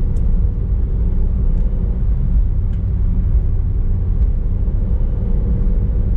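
Steady in-cabin driving noise of a VW Polo on the road: low rumble of its freshly rebuilt BAH engine together with road noise, running smoothly with no knocks.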